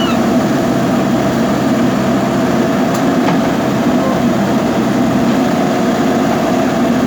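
Diesel engine of a JCB backhoe loader running steadily under load.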